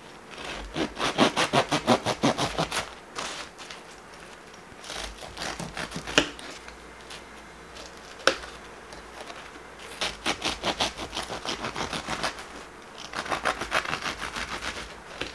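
Serrated bread knife sawing through a freshly baked loaf with its crust, in quick back-and-forth strokes that come in several spells. Two sharp knocks stand out, around six and eight seconds in.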